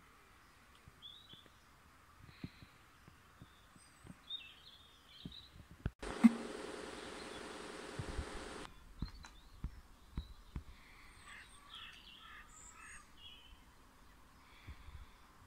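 Dawn chorus of songbirds: short, scattered high chirps and warbling phrases. About six seconds in, a loud rushing noise with a low hum cuts in with a sharp knock and stops abruptly about two and a half seconds later.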